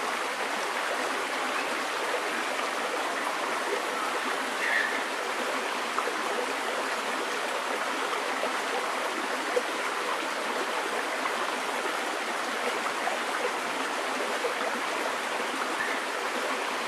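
Steady rushing of a stream running over rocks, with one short click about ten seconds in.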